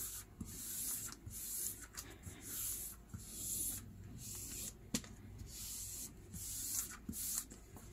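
Hands rubbing and smoothing a sheet of paper laid over an inked baking tray, pressing it down to pick up the print: a run of short swishes, about one a second, with a single small click about five seconds in.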